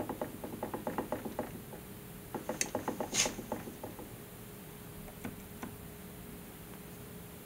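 A bicycle crank rattling: two runs of quick, fairly even clicks and knocks, with a couple of single clicks after them.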